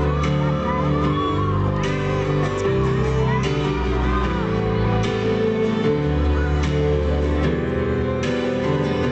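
Live band playing an instrumental passage between sung verses, with sustained chords and guitar. A sharp drum-like hit comes about every one and a half seconds, with voices shouting and whooping over it.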